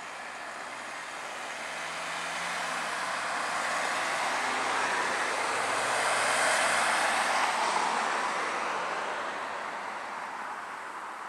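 Road vehicles passing close by: tyre and engine noise swells to a peak about six or seven seconds in, then fades, with a low engine hum sliding down in pitch as a vehicle goes past.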